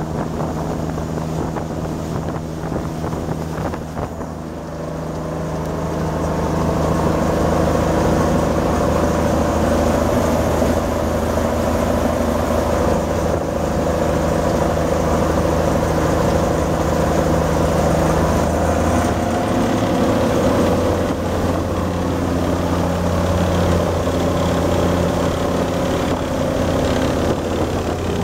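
Volvo Penta D9-575 inline-six marine diesel of a Yamaha DY48H running steadily under way at speed, over the rush of water from the hull and wake. The engine sound grows louder about six seconds in and then holds steady.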